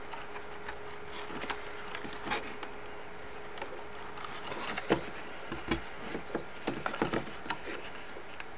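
Cardstock being handled as hands fold and fit the pieces of a paper box together: scattered light clicks, taps and crinkles, the sharpest about five seconds in.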